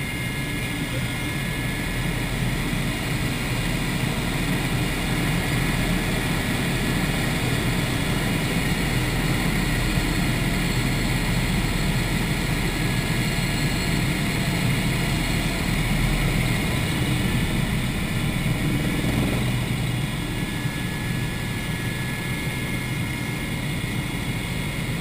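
Cabin noise of a Eurocopter EC120 Colibri helicopter in flight: the dense, steady drone of the rotor and its single turboshaft engine, with a steady high-pitched whine riding over it.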